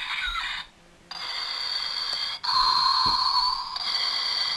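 Electronic sound from a Darth Vader toy's small speaker: steady high tones in blocks of about a second, separated by short breaks, after a brief pause about a second in.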